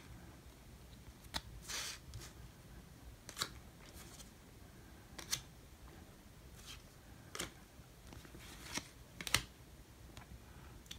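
Baseball trading cards being slid one at a time off the front of a hand-held stack, a short papery scrape every second or two.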